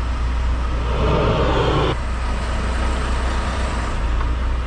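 Truck engine running steadily with a low drone. About a second in, a short rushing noise joins it and stops abruptly a second later.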